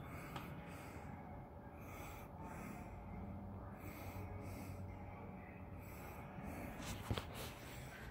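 Quiet room tone with a faint steady low hum, and soft breathing close to the microphone swelling and fading every second or so. A light tap comes about seven seconds in.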